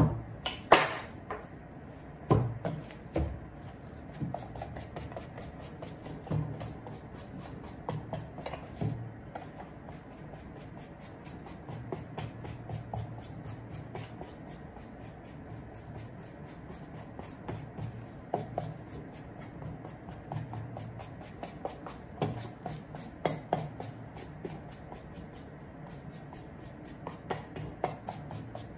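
Small wooden-handled brush scrubbing a suede shoe upper in rapid, regular back-and-forth strokes. There are a few sharp knocks in the first three seconds.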